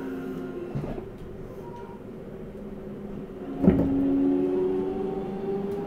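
Running sound of a Seibu 6000 series electric train, recorded on board: the whine of its Hitachi GTO-VVVF inverter and traction motors dies away about half a second in, leaving wheel and rail noise. About two-thirds of the way through, a sharp knock comes from the wheels over a rail joint. The inverter whine then starts again, one tone slowly rising in pitch.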